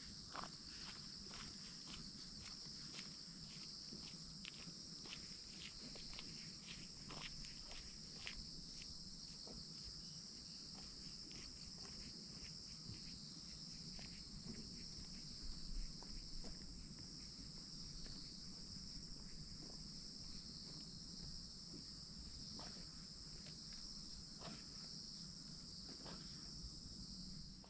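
Steady, high-pitched chorus of insects such as crickets or cicadas, with footsteps crunching along a trail as irregular clicks.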